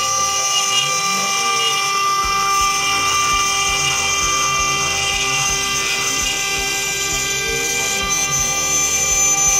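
A 6040 CNC router's spindle whining steadily as a small end mill cuts a curved contour into a metal plate, with lower motor tones that rise and fall in pitch as the machine traces the arc.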